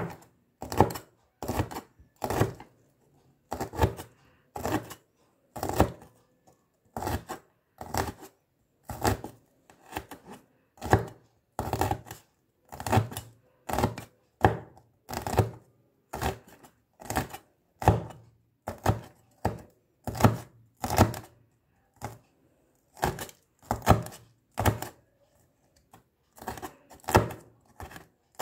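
Stainless steel cleaver chopping green chilies on a plastic cutting board: a steady run of sharp knocks, about three chops every two seconds.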